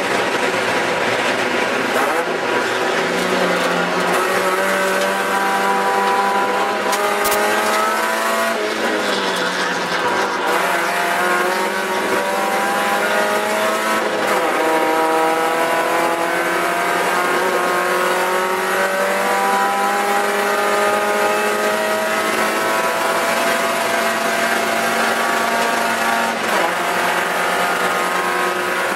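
Mazda Miata race car's four-cylinder engine heard from inside the cockpit at racing speed, its pitch climbing and falling back several times as it pulls through the revs, over wind and road noise.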